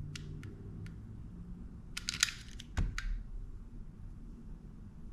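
A few light clicks, then a handheld lighter being struck about two seconds in, clicking with a short hiss of gas, and a dull knock just before three seconds.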